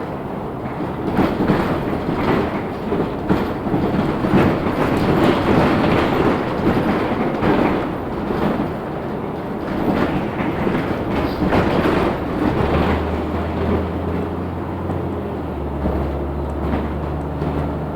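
Inside a LiAZ 6213.65 articulated city bus under way: rumbling road noise with repeated clattering and rattling knocks. About two-thirds in, the rattling eases and a steady low engine hum comes up.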